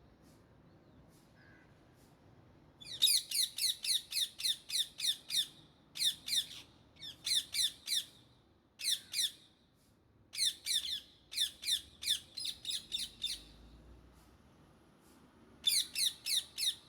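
Indian ringneck parakeet screeching in bouts of rapid repeated calls, about four a second, each note dropping slightly in pitch. The bouts begin about three seconds in and are broken by short pauses.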